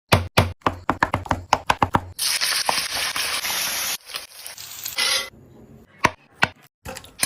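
Knife chopping on a cutting board in a quick run of knocks, about five or six a second, then a loud steady hiss for about two seconds, a shorter hiss, and a few single knocks near the end.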